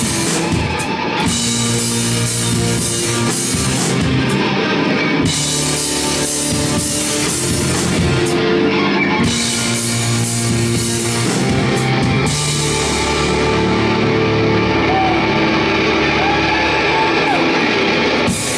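Progressive rock band playing live: electric guitars, bass guitar and drum kit over held chords that change every few seconds. About two-thirds of the way through the cymbals drop out, leaving the sustained chords.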